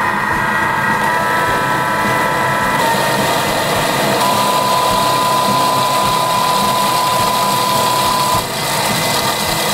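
Thermomix food processor running, its blades blending a garlic and almond cream while olive oil goes in a thin stream to emulsify it like an aioli. A steady motor sound with a whine that shifts pitch a few times and stops a little after eight seconds in.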